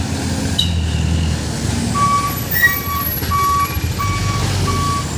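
Truck reversing alarm beeping: five short, evenly spaced beeps starting about two seconds in, over the truck engine running.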